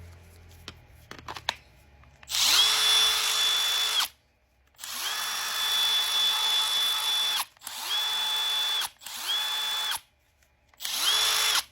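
Milwaukee M12 cordless power tool's motor run five times in short bursts, each spinning up quickly to a steady high whine and cutting off, after a few light clicks of handling; a test run after its ribbon cable was pried back into place to stop the warning lights flashing.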